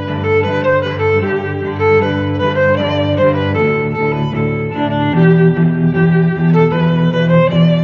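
Background music of bowed strings, violin and cello, playing sustained notes that change every second or so.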